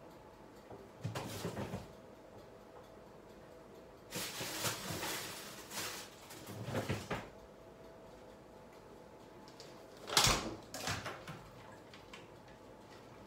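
Off-camera handling noises: a short scraping rustle about a second in, a longer stretch of rustling and scraping from about four to seven seconds, and a sharp knock with a low thud about ten seconds in, like a cupboard or drawer being shut.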